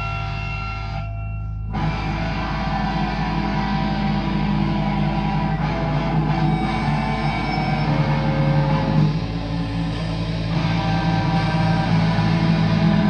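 Doom metal band playing live with heavy distorted guitars, bass and drums. Held, ringing guitar tones at first, then about two seconds in the full band comes in with a loud, dense wall of sound.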